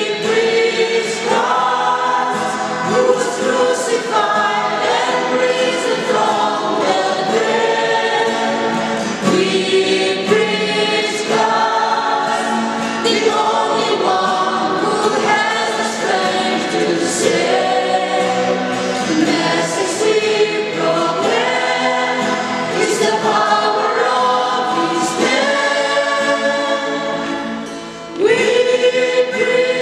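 Mixed choir of men and women singing a hymn in held, sustained phrases, with a brief break between phrases near the end.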